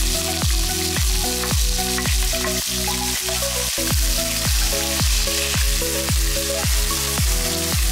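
Sliced onions sizzling in hot ghee and oil with whole spices, under background music with a steady thumping beat of about two a second.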